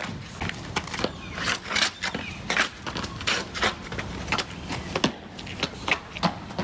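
A run of sharp footfalls and landing knocks from shoes on wood and stone, irregular at first, then coming about twice a second near the end as the runner sprints.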